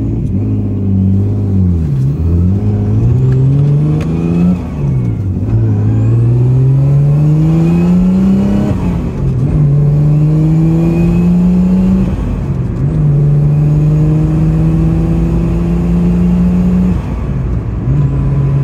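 Nissan RB20DET turbocharged straight-six heard from inside the cabin of a 1989 Laurel, accelerating through the gears of its 5-speed manual. The engine pitch climbs in each gear and drops sharply at each upshift, about every three to four seconds.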